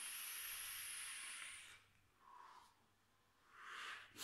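Long draw through a dotMod Petri dripping atomizer with a 0.2-ohm dual fused Clapton build: a faint, steady hiss of air past the firing coil, with a thin high whistle on top, lasting about two seconds. Near the end comes a breathy exhale of the vapour.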